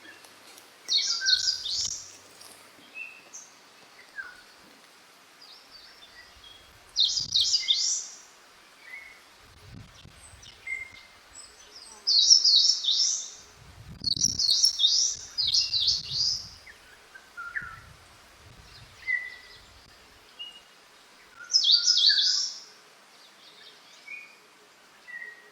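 Wild songbirds singing in spring woodland: a loud, high, bright phrase about a second long comes again about six times, with softer single chirps from other birds in between.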